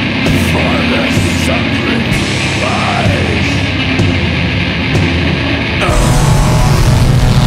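Black metal: dense, distorted guitars and drums, with sliding pitches in the first few seconds. About six seconds in, the music steps up into a louder, heavier section.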